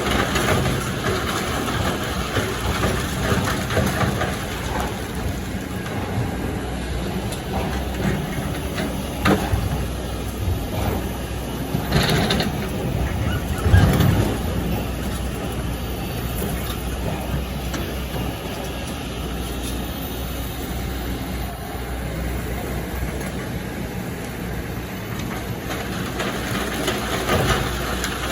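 Excavator's diesel engine running steadily under load, with a few sudden knocks of rock and bucket, the loudest about fourteen seconds in.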